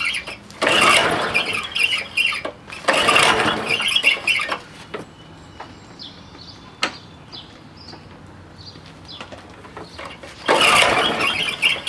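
Honda HR214 lawnmower's recoil starter pulled three times, each pull a loud rasping squeal of about a second and a half as the engine is cranked. The engine does not settle into running; there are a few light clicks between the second and third pulls.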